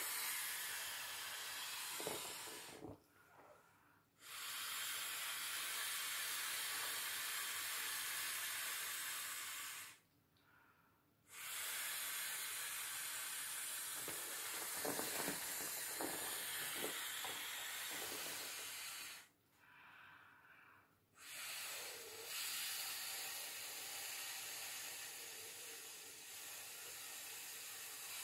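Breath blown by mouth into the valve of a vinyl inflatable swimming pool: four long rushing blows of several seconds each, with short quiet pauses between them to draw breath.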